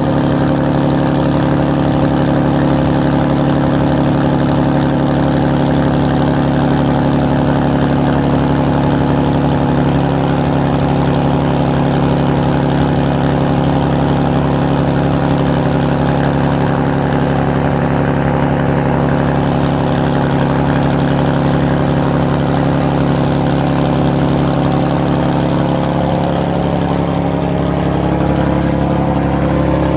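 A ferry's engine running steadily at constant speed, a low, even drone. Near the end a second, fainter engine note briefly rises and falls.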